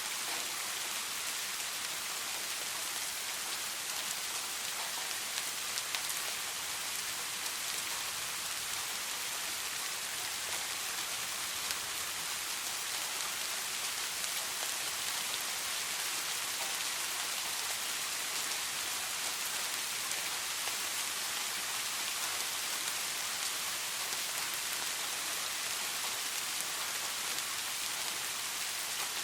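Steady rain falling, an even hiss with the occasional louder drop ticking through.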